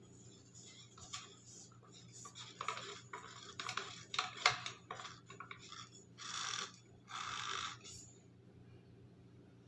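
Hands working the black metal pole of a floor-stand phone holder: rubbing and scraping with scattered clicks, a sharp click about four and a half seconds in, then two longer rubbing sounds a little after six and seven seconds.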